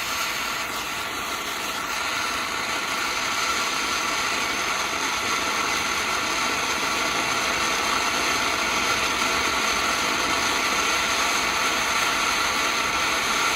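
Safe-and-sane box fountain firework spraying a shower of sparks, a steady, unbroken sound that holds level throughout.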